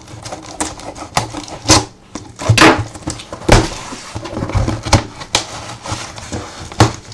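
Cardboard shipping box being cut open and handled: a run of scrapes, rustles and knocks as the packing tape is slit and the box flaps are pulled open.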